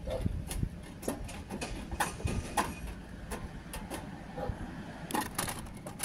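Hand tin snips cutting sheet-metal flashing: a series of irregular sharp snips, about two a second, with a quicker run of cuts near the end.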